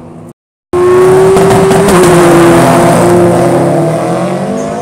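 Street-racing cars accelerating hard, their engines very loud at high revs, with the pitch climbing toward the end. It cuts in after a split-second of silence.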